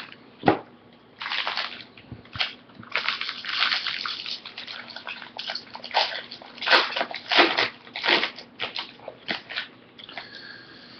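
Paper and foil rustling and crinkling in irregular short bursts as packs of Topps baseball cards are handled and opened.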